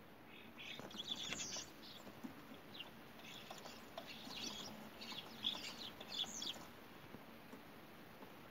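Common starling giving short high chirps and squeaky calls in quick clusters, which die away about two-thirds of the way through.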